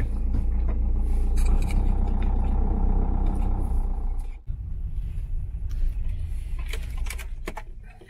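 A car driving, heard from inside the cabin: a steady low engine and road rumble. About four and a half seconds in it drops suddenly to a quieter rumble, and a few knocks come near the end.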